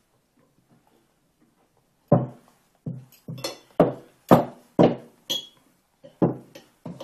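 A toddler banging a large cooked meat bone down on a wooden tabletop: about ten hard knocks in quick, uneven succession, starting about two seconds in.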